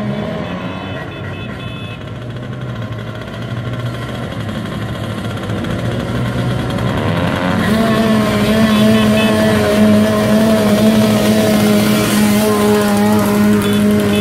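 A column of motorcycles riding slowly up the road, their engines growing steadily louder as they approach. From about halfway in, a steady engine drone holds a constant pitch.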